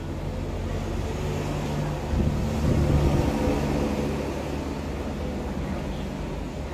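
Steady low mechanical hum with a rumble, like a running engine or motor, swelling slightly about two to three seconds in.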